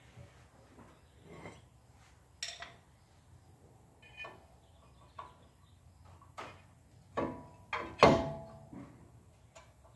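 Scattered metal clinks and knocks from fitting a new cross-drilled, slotted brake rotor onto the front hub. The loudest is a quick run of three clanks about seven to eight seconds in, the last ringing briefly.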